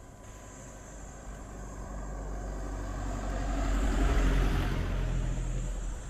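A road vehicle passing by. Its engine hum and tyre noise build to a peak about four seconds in, then fade.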